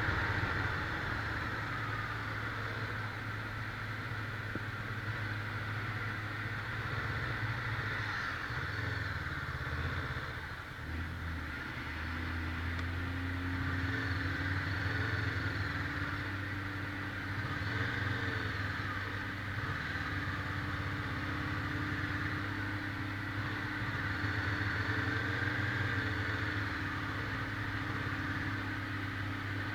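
Motorcycle engine running steadily while riding, its note dipping briefly about ten seconds in and then settling on a steady tone.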